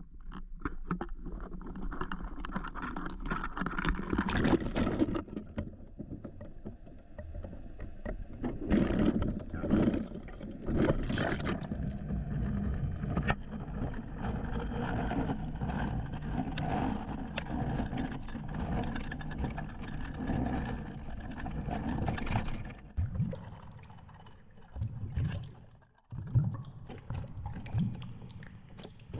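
Muffled underwater rushing and rumbling from water moving past a GoPro camera as it sinks on a fishing line, with irregular knocks and clicks as the camera and line bump about.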